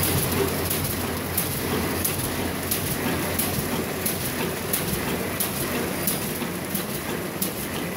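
Paper bag making machine running, its rollers and gears drawing kraft paper through with a steady mechanical clatter and frequent sharp clicks, about one or two a second.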